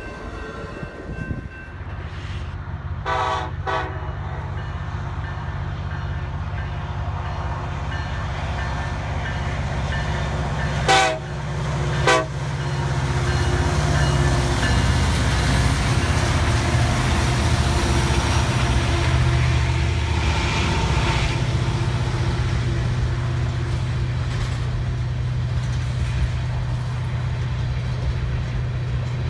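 Freight train's BNSF diesel locomotives sounding two pairs of short horn toots, then passing with a steady low engine rumble that grows louder, followed by a long string of tank cars rolling by on the rails.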